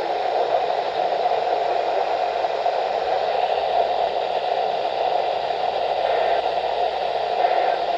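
Steady static hiss from a Midland WR-120 weather radio's small speaker, with no voice or tones in it.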